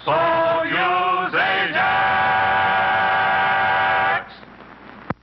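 Vocal group singing the closing notes of an old TV advertising jingle: two short chords, a quick upward slide, then a long held final chord that stops about four seconds in. A sharp click follows near the end.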